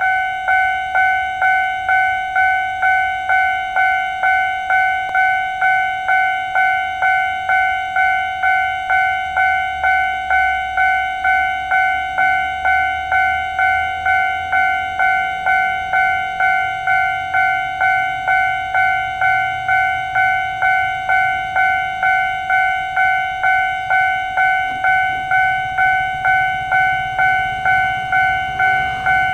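Railway level-crossing warning bell ringing: an electronic chime at one steady pitch, struck about twice a second without a break, signalling that a train is approaching.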